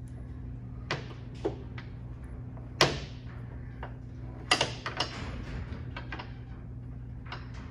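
Sharp metallic clicks and knocks from hand tools and strut hardware being handled while a hood gas strut is fitted. There are a few separate knocks, the loudest near the middle, then a quick cluster of three, over a steady low hum.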